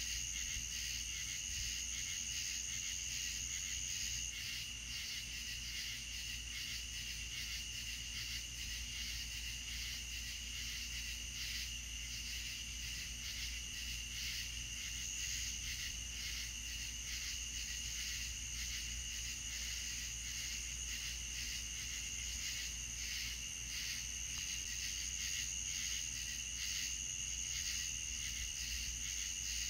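Crickets chirping in a steady, continuous night chorus: two high, fast-pulsing trills that hold unbroken throughout, over a low steady hum.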